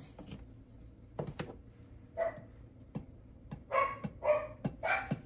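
A dog barking, about four short barks in the second half, amid light clicks and knocks from items being handled.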